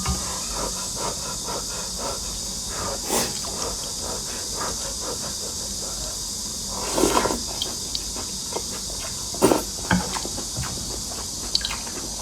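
Close-miked eating sounds: chewing and slurping of noodle soup, with a few louder slurps, over a steady high chirring of insects.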